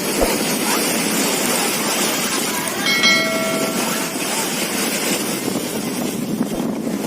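Steady rushing noise, with a horn sounding once for about a second about three seconds in.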